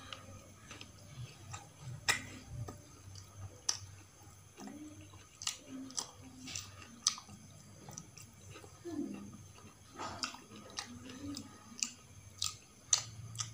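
Close-miked eating by hand: wet mouth clicks and smacks of chewing, coming irregularly every second or so, with a few short low hums between them.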